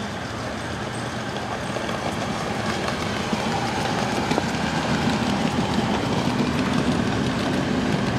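A 7.5-inch gauge live steam locomotive pulling a loaded ride-on passenger train past at close range, its wheels running over the rails. The sound grows steadily louder as the train comes near.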